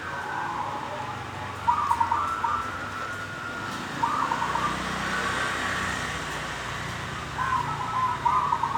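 Zebra dove (perkutut) cooing three times, about every three seconds, in the rolling, drawn-out style fanciers call 'ngorok ndelosor', over a steady low background noise.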